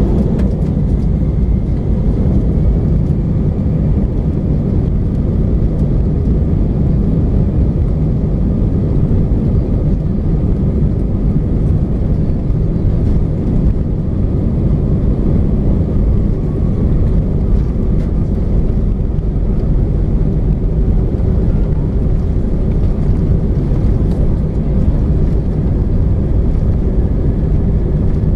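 Steady cabin rumble inside an Airbus A319 taxiing on the ground: its jet engines at low thrust, with a faint whine over the deep, even roar of the engines and the wheels on the concrete.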